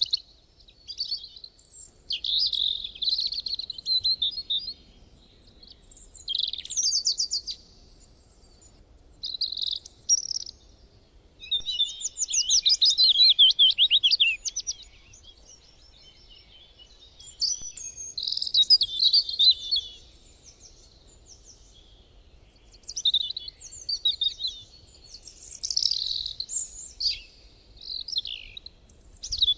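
Songbird singing: short, high-pitched phrases of chirps and fast trills, separated by pauses of a second or two, with a longer rapid trill about halfway through.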